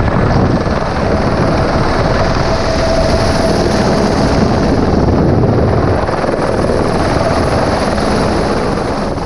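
Helicopter in flight, heard from inside the cabin with the door open: a loud, steady rush of rotor and engine noise with a thin high whine over it.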